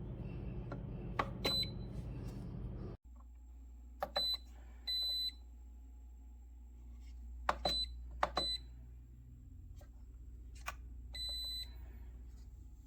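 Electric gooseneck kettle's control panel beeping as its buttons are pressed: several short single-pitch electronic beeps and two longer ones, mixed with a few sharp plastic clicks.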